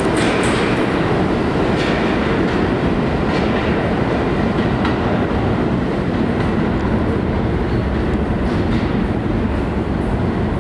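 R62 New York City subway train running along the track, a loud steady rumble with faint clicks of the wheels over rail joints about every second and a half.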